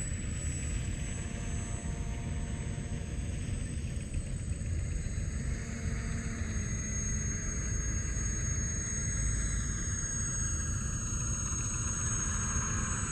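Radio-controlled Magnus-effect twin rotorcraft flying, its motors and spinning rotors whirring with a pitch that falls and rises again in the last few seconds as it moves about, over a steady low rumble.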